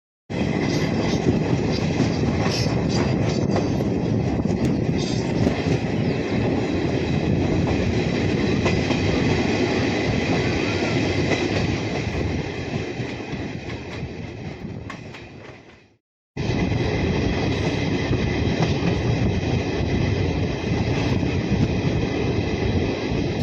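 A moving train running along the rails, a steady noise of wheels and carriage. It fades away and cuts off about two-thirds of the way through, then starts again suddenly.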